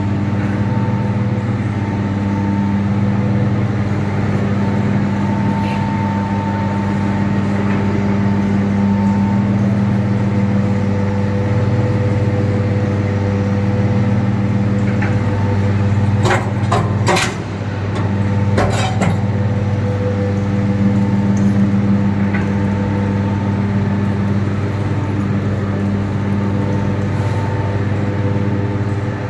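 Poultry feed mill machine running with a steady hum. A few sharp knocks come a little past halfway.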